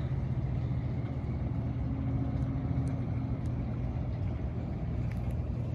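Steady low mechanical hum of a running motor, even and unchanging, with a faint extra tone for a second or two in the middle.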